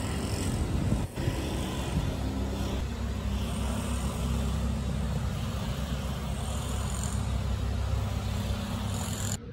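Steady road traffic: cars passing on a multi-lane road, a continuous low rumble with tyre hiss, briefly dropping out about a second in.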